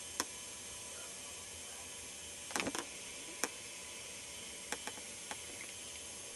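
Steady hiss and hum of a camcorder's recording noise, broken by a scattered handful of short sharp clicks, three in quick succession about two and a half seconds in.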